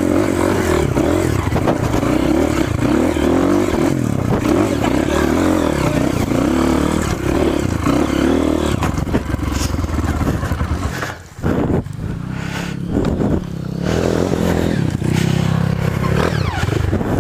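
Trail motorcycle engine running, its pitch rising and falling as the throttle is worked, with a brief drop about eleven seconds in.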